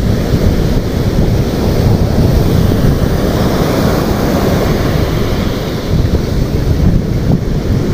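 Surf breaking and washing up a sandy beach, a steady rushing noise, with wind buffeting the microphone and rumbling in the low end.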